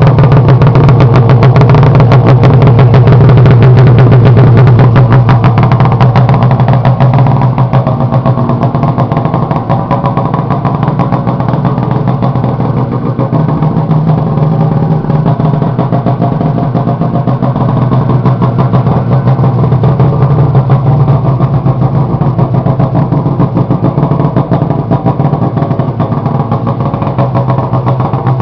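Arctic Cat F6 snowmobile's 600 cc two-stroke twin running steadily at idle, smoking from the exhaust. It is a little louder for the first several seconds, then settles to an even idle.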